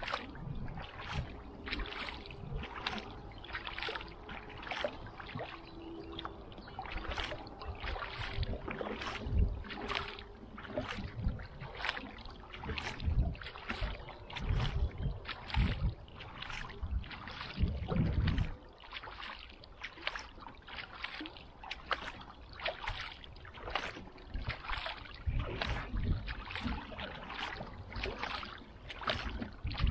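Kayak paddle blades dipping into calm lake water, stroke after stroke in a steady rhythm of splashes and drips, a little more than one a second.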